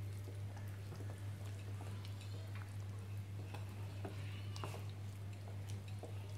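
Spatula stirring thick cake batter in a glass bowl: faint wet scraping with scattered light clicks against the bowl, over a steady low hum.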